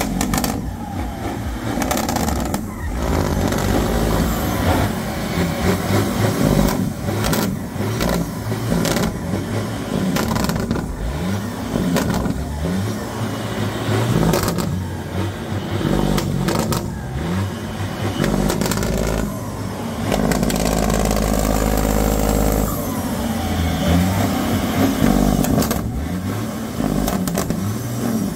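Diesel engine of a long-nose American semi truck revved again and again while parked, the revs rising and falling with turbo whistle, black smoke pouring from its twin straight stacks.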